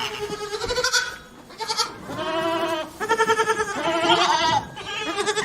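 Goats bleating: a series of about five or six bleats in quick succession, each with a quavering pitch.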